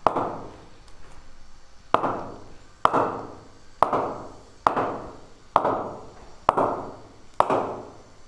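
Leather cricket ball bounced repeatedly on the face of a Kashmir willow bat: eight sharp knocks just under a second apart, each with a short ring. The maker hears this as strong 'punch', just like a leather-ball bat.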